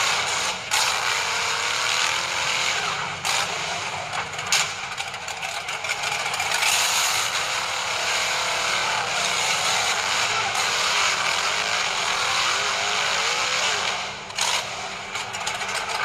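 HSP Pangolin RC rock crawler's electric motor and gearbox whining and grinding as it crawls over rocks, the whine rising and falling with the throttle, with a few sharp clicks.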